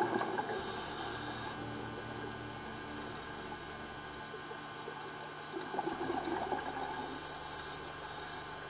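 Scuba diver breathing through a regulator underwater: twice, a bubbly exhalation followed by a hissing inhalation.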